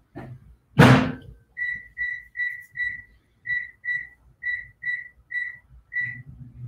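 A single loud thump about a second in, then about ten short, high, single-pitched electronic beeps, two or three a second with a few short breaks.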